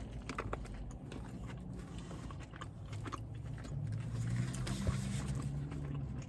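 A person biting into and chewing a crispy fried chicken sandwich, heard as scattered small crunching clicks over a low steady hum.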